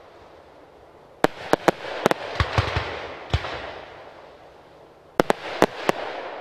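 Fireworks display. Several sharp bangs about a second in are followed by a noisy tail that fades away. A second quick cluster of bangs comes near the end.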